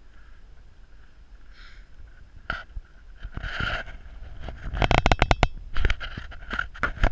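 Mountain bike rolling down a rough dirt trail, with a low wind rumble on the microphone. From about two and a half seconds in it rattles and clatters over the bumps, with the heaviest run of quick knocks around the middle.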